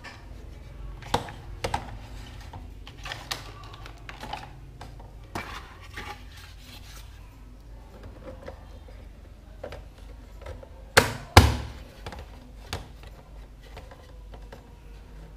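Hard plastic toy kitchen parts handled and fitted together: scattered light clicks and knocks, with two loud knocks in quick succession about eleven seconds in.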